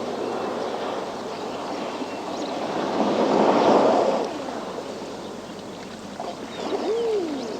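Sea waves washing against a rocky shore: a surge builds to its loudest about three to four seconds in, then falls back. A short rising-then-falling tone comes near the end.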